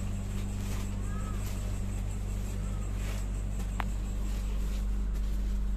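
Steady low hum inside a passenger train carriage, with one short sharp click about four seconds in.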